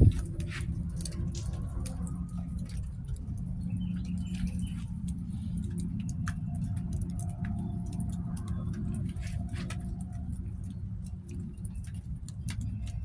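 Outdoor ambience: a steady low rumble with many scattered light ticks and taps, and a thump right at the start.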